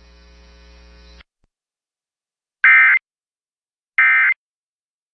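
Two short bursts of Emergency Alert System SAME digital data tones, the warbling end-of-message code, each about a third of a second long and a little over a second apart. Before them a faint steady hum cuts off about a second in.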